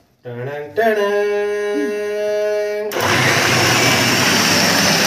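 Electric food processor with a chopper attachment chopping vegetables. The motor whines up to speed within half a second and holds a steady whine. About three seconds in it turns into a louder, coarse rushing noise.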